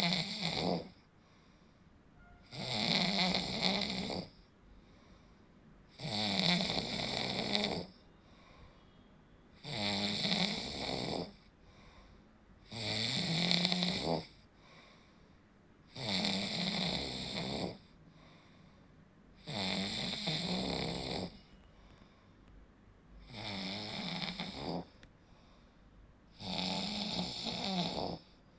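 A person snoring in slow, regular breaths: one snore about every three and a half seconds, each lasting about a second and a half, with quieter gaps between.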